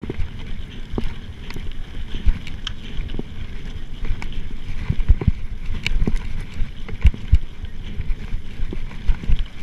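Mountain bike riding fast over a bumpy forest dirt track: a steady low rumble of tyres and wind, with frequent sharp clicks and knocks as the bike rattles over bumps.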